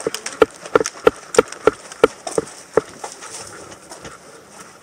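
Running footsteps on gravel and grass, about three steps a second, that stop about three seconds in, over a steady high hiss.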